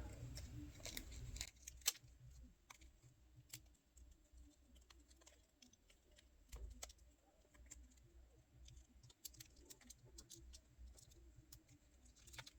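Near silence broken by faint, scattered clicks and taps of a small feature phone's plastic parts being handled during reassembly, with one sharper click about two seconds in.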